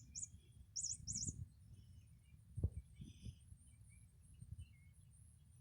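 Bird-like chirping in quick high trills, twice in the first second and a half, then a soft thump a little before halfway and a couple of lighter knocks after it.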